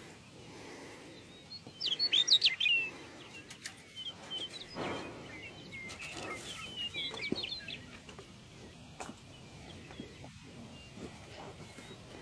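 A small songbird singing quick, high chirping phrases, loudest about two seconds in and again around the middle, with a few soft knocks in between.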